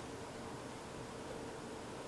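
Faint, steady hiss with a low hum: room tone, with no distinct sound events.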